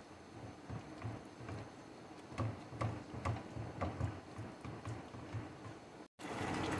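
Silicone spatula stirring thick onion-tomato masala as it fries in an aluminium pot, with faint irregular ticks and soft knocks against the pot a few times a second. The masala is being fried until the oil separates.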